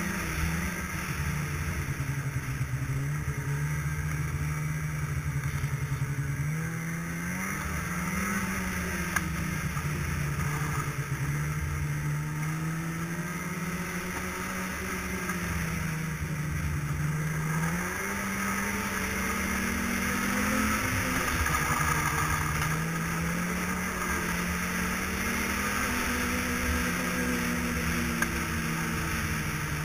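Snowmobile engine running along the trail, its pitch rising and falling as it speeds up and eases off, over a steady hiss.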